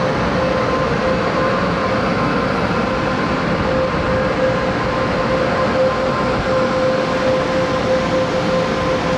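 Taiwan Railways EMU500 electric multiple unit running, a steady loud rush of train noise with a constant hum.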